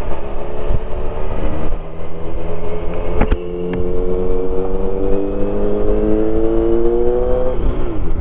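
Kawasaki Versys 1000's 1000 cc four-cylinder engine accelerating under the rider, its pitch climbing steadily for several seconds. There is a sharp click and a brief break about three seconds in, and the pitch falls off sharply near the end.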